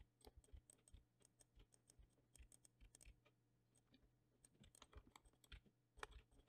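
Near silence with faint, scattered taps of computer keyboard keys, irregular and a few per second, while shortcuts are pressed to move and rotate a 3D rig's controls.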